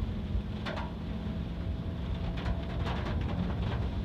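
Inside a moving car: steady engine and road rumble, with a few brief sharper sounds about a second in and again near the end.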